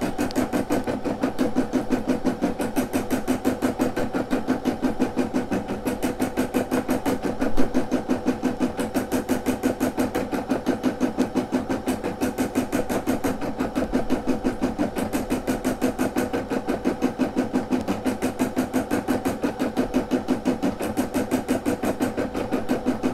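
Brother SE600 embroidery machine stitching a design into canvas fabric, its needle going up and down in a rapid, even rhythm. There is one slightly louder knock about seven and a half seconds in.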